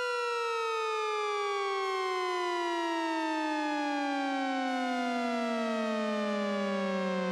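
SHR Tones synthesizer plugin playing its 'Falling Tone' preset: one electronic tone sliding slowly and evenly down in pitch, like a siren winding down.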